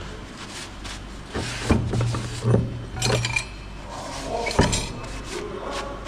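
Metal tools and brake-chamber parts clinking and knocking as they are handled during a truck brake-chamber overhaul: a handful of separate sharp clinks, the loudest about four and a half seconds in.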